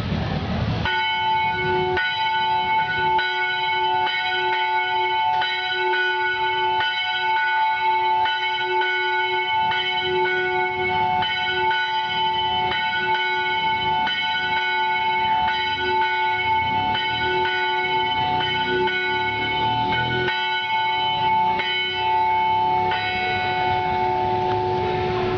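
Church bell rung as the call to worship before a service, struck steadily a little more than once a second, each stroke's ringing carrying on into the next. The strokes stop near the end and the bell hums on.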